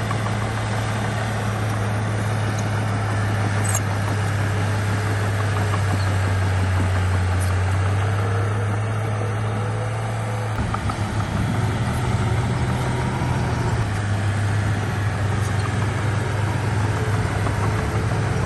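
Heavy diesel engine of earthmoving machinery running steadily, with a low, even drone that turns rougher and changes pitch about halfway through, as the load or throttle changes.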